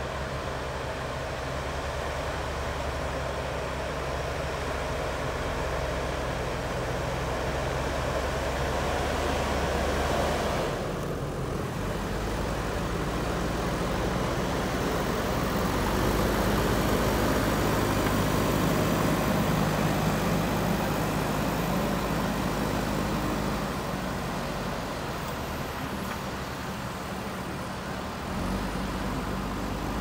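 JCB backhoe loader's diesel engine running steadily while the front bucket pushes soil. The sound changes abruptly about a third of the way in and is louder for a stretch in the middle.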